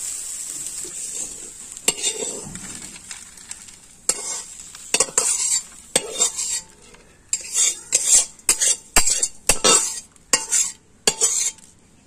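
A faint sizzle dies away over the first few seconds, then a metal spatula scrapes and stirs against a steel wok in about a dozen short, sharp strokes, stopping near the end.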